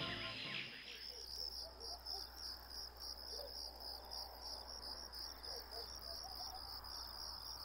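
Crickets chirping in an even, high-pitched pulse of about four chirps a second. Music fades out about a second in.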